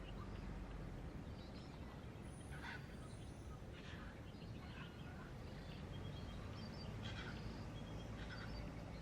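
Faint steady background noise with a few brief, faint bird chirps scattered through it.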